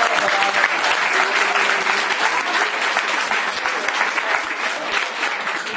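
A small group clapping and applauding by hand, fairly loud and steady, easing off slightly near the end.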